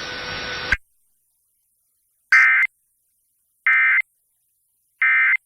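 Emergency Alert System end-of-message signal: three identical short bursts of buzzing digital data tones, about a second and a half apart, received off FM broadcast radio. These mark the close of the alert. Before them, a faint steady hiss cuts off with a click just under a second in.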